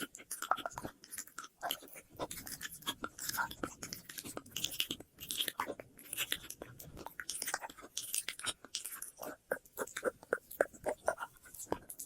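ASMR mouth sounds close to the microphone: a quick, irregular stream of wet clicks, smacks and tongue pops, with an echo effect on them.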